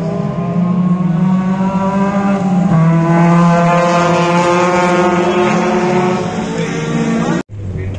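Folkrace car engine held at high revs, one steady engine note that eases off slightly near the end. It cuts off abruptly about seven and a half seconds in.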